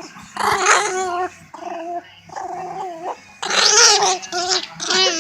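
Pet dog growling in a series of short, pitched grumbles while play-fighting with its owner.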